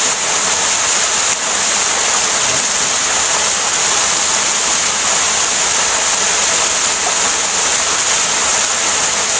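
Rushing water of a waterfall and its river, a steady, even hiss.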